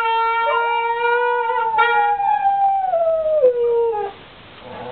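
A toy horn blown in a long steady note while a dog howls along. The sound slides down in pitch in its second half and stops about four seconds in.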